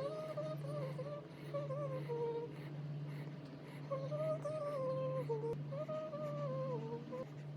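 Goldendoodle whining in three long, drawn-out whimpers that slide up and down in pitch, over a steady low hum.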